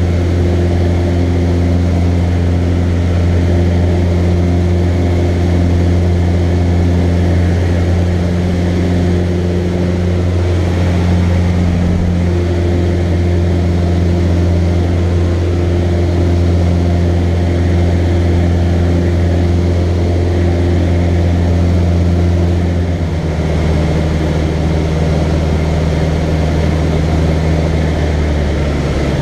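Cessna 150L's Continental O-200 four-cylinder engine and propeller droning steadily in cruise, heard from inside the cockpit. The pitch steps down slightly about three-quarters of the way through.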